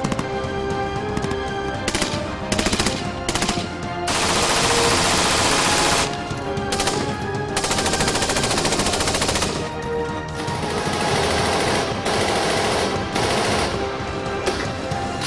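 Automatic fire from 5.56 mm HK Modular Weapon System rifles: short bursts in the first few seconds, then long full-auto strings of about one to two seconds each.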